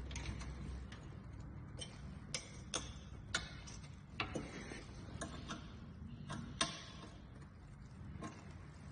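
Sharp clicks, about ten at uneven spacing, from a hand tool tightening mounting screws.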